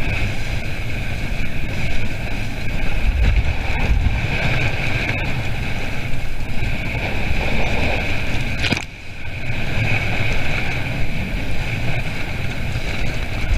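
Wind buffeting the microphone over water rushing past the hull of a sailing dinghy under way. A single sharp click comes about nine seconds in, followed by a brief lull.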